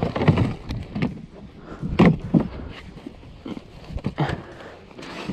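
Irregular knocks and rustling as a bag and the hard plastic rear cargo box of a snowmobile are handled: several short clunks, about a second apart.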